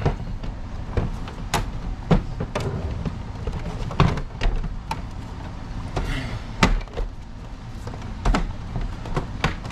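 Plastic housing of a wall-mounted mini-split indoor unit knocking and clicking as it is handled and pushed onto its wall mounting, a dozen or so irregular sharp knocks and clunks.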